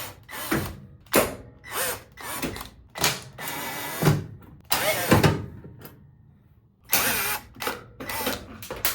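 Repeated sharp knocks, clicks and rattles, with short stretches of scraping, as the washer's plastic control-board housing is pushed and pulled to slide it out. The sound breaks off briefly about six seconds in.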